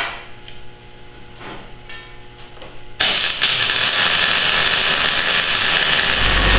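A power tool cutting or grinding steel starts abruptly partway through and runs with a loud, even noise, throwing sparks off the steel beam. Before it starts there are only faint clinks of handling. A low rumble joins near the end.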